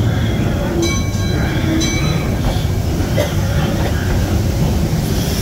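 Mine-train ride cars rumbling steadily along their track through the ride's tunnels. About a second in and again just before two seconds there is a brief high metallic ring.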